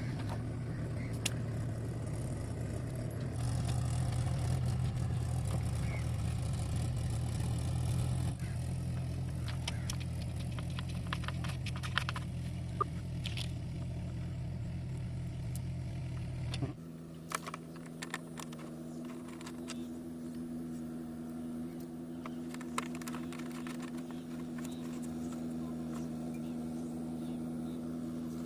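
Yamaha FZ motorcycle engine running steadily, with scattered clicks and light metal clatter as the chain-cover panels are refitted. About two-thirds of the way through, the low hum cuts off sharply and a quieter, steadier hum at a higher pitch takes its place.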